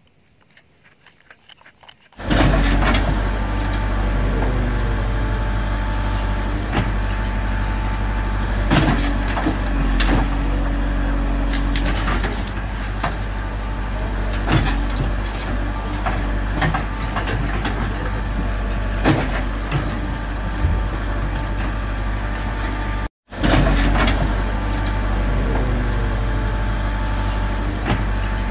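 Near silence for about two seconds, then a JCB 3CX backhoe loader's diesel engine running steadily as it digs, with occasional clanks and knocks from the arm and bucket.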